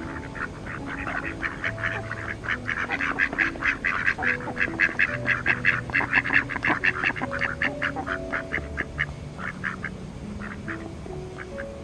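Ducks quacking in a rapid chatter, several calls a second, loudest about halfway through and thinning out near the end.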